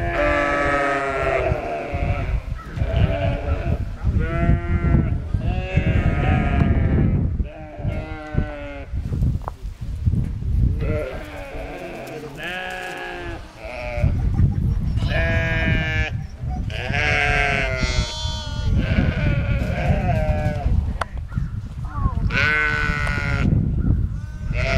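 Sheep bleating over and over, several animals calling one after another with wavering calls about a second long, over a low rumble.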